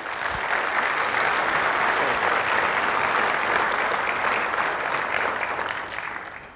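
Audience applauding: a dense patter of many hands clapping that starts at once and dies away near the end.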